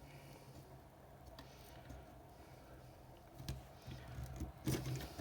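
Faint scattered clicks and taps of metal tweezers working at a small cable connector on a headset's circuit board, with a few louder clicks about three and a half and five seconds in, over a faint low hum.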